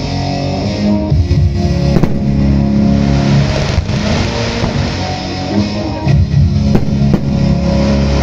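Rock music with guitar and drums played over the loudspeakers of a pyromusical fireworks display, with a few sharp hits about two and four seconds in.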